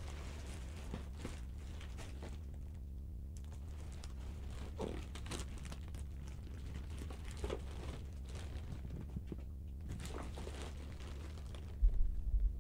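A white plastic poly mailer package crinkling softly as it is picked up, held up and turned over in the hands, over a steady low hum. A few thumps near the end as the microphone boom arm is grabbed and moved.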